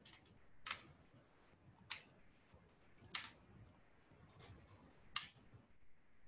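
Faint, sharp clicks at a computer, about five of them roughly a second apart with a few softer ones between, as a slide presentation is clicked through.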